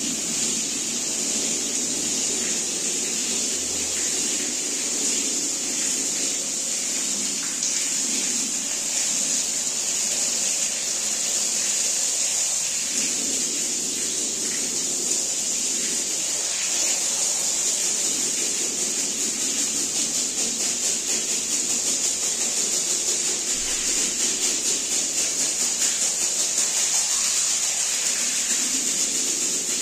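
Steady hiss of a water jet spraying onto a rug during wet cleaning, pulsing faintly in the last few seconds.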